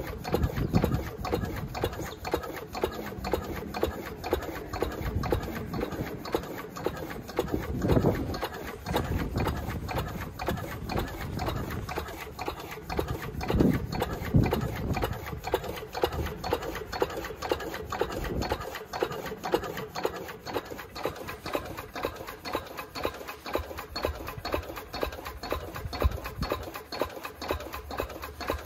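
1947 Lister CS 6/1 single-cylinder diesel stationary engine running slowly and steadily at about 250 rpm, with an even rhythmic beat.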